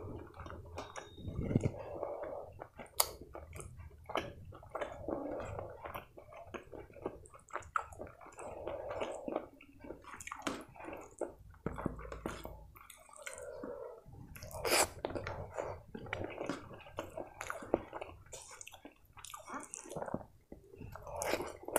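Close-miked chewing and wet mouth sounds of a person eating rice and chicken curry, with many small sharp clicks. Squishing as fingers mix soft rice and curry on a steel plate.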